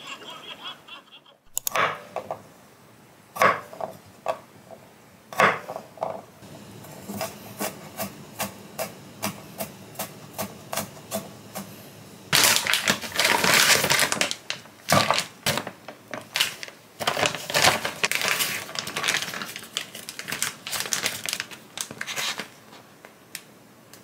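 Knife chopping on a wooden cutting board: a run of regular knocks about two a second, a denser scraping stretch a little past the middle, then more uneven knocks.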